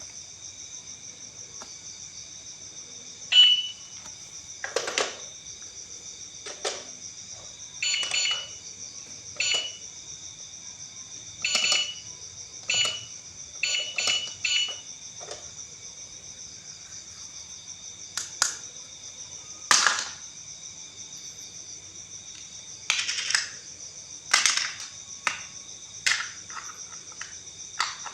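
Steady high-pitched trill in the background, with a scattered series of short clicks and knocks, several of them with a brief beep.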